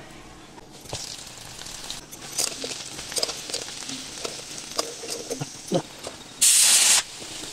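Cornflour-coated chickpeas deep-frying in hot oil: a steady sizzling hiss with scattered pops and crackles, growing about a second in. Near the end a loud burst of hiss lasts about half a second.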